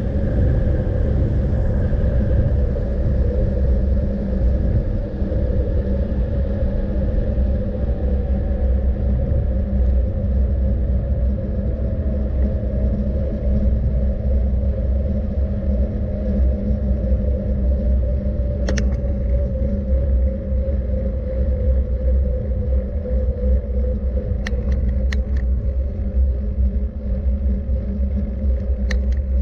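Steady low rumble of a moving vehicle, with a constant hum that sinks slowly in pitch and a few faint clicks in the second half.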